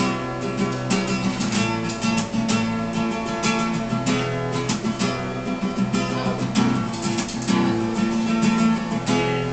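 Acoustic guitar strummed, sustained chords ringing between regular strokes, with no singing.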